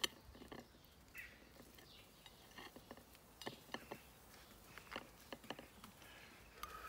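Faint, scattered clicks and light scrapes of a knife and fingers against a ceramic plate as the charred skin is peeled off a grilled eggplant.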